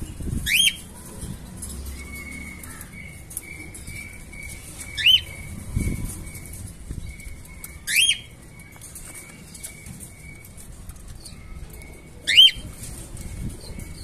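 Budgerigars calling: four short chirps that sweep sharply upward, spaced a few seconds apart, over a faint steady high tone that comes and goes, with a few low thumps.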